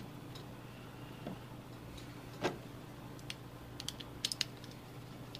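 Light clicks and taps of small plastic and metal parts being handled while wiring a cigarette-lighter plug: one sharper click about two and a half seconds in, then a quick cluster of small clicks a little later, over a faint steady hum.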